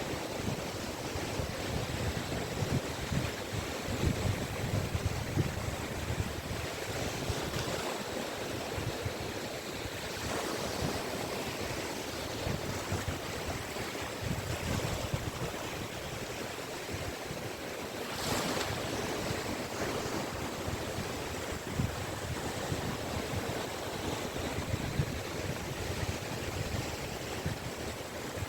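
Small sea waves breaking and washing up a Caspian Sea beach in a continuous wash, with one louder surge about eighteen seconds in. Wind buffets the microphone now and then.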